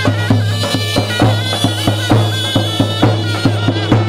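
Traditional folk music: a reedy wind instrument playing an ornamented, wavering melody over a steady low drone, with regular drum beats.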